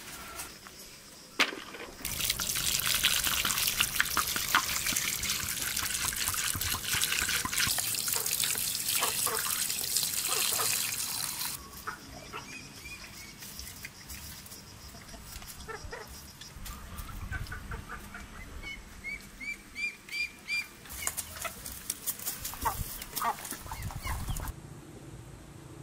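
Water pouring into a metal basin for about ten seconds, then stopping suddenly. It is followed by wet splashing and handling of raw whole chickens in the water, with a short run of bird chirps.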